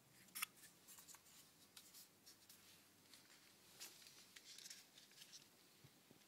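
Near silence with faint scattered clicks and brief rustles of handling, one sharper click about half a second in.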